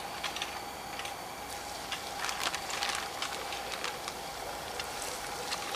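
Plastic zip-top bag crinkling in scattered crackles and clicks as floured fish pieces are handled inside it, over a faint steady background hiss.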